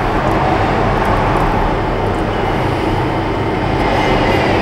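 A fan running steadily, an even rushing noise over a low hum.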